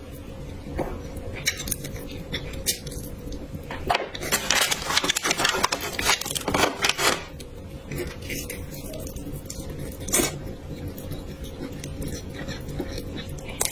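Close-miked eating sounds: chewing and wet mouth noises with many small clicks, thickest for a few seconds in the middle of the stretch.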